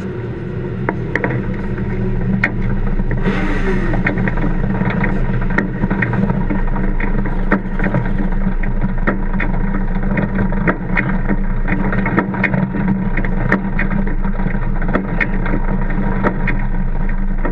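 Micro sprint's racing engine idling steadily, heard from the onboard camera close to the engine, with a rapid scatter of mechanical clicks and rattles over the low hum.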